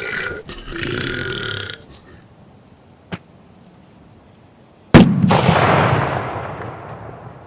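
A man's long, drawn-out belch that ends about two seconds in. About five seconds in comes a sudden loud explosion bang, whose tail fades away over about two seconds; a short click comes between them.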